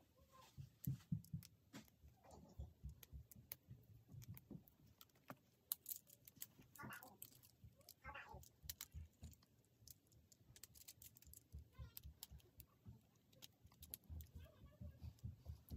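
Faint, irregular clicking and light rattling of small plastic Lego Technic parts being handled and fitted together.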